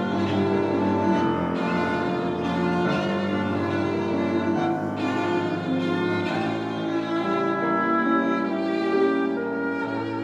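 Classical chamber music played live, with bowed strings to the fore: violin and cello sustaining notes over piano.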